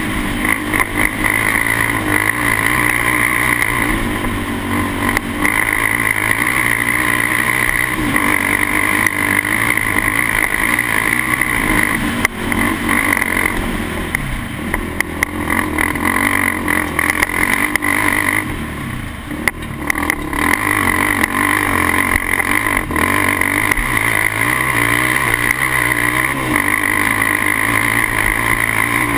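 Polaris Outlaw 525 S quad's KTM single-cylinder engine with an HMF exhaust, running hard under load up a dirt hill climb. The throttle eases off briefly about two-thirds of the way in, then the engine pulls strongly again.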